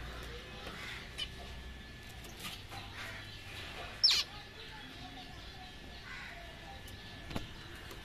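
Caged zebra finches giving scattered short, faint chirps, with one loud, sharp call falling in pitch about four seconds in.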